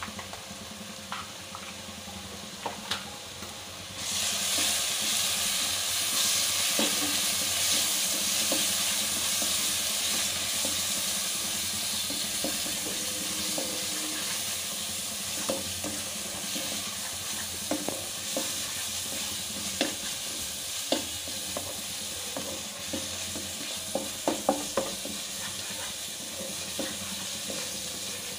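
Spice masala frying in mustard oil in a kadai, sizzling loudly from about four seconds in and slowly easing off. A spatula scrapes and clicks against the pan as the ground spices are stirred into the onion paste and fried.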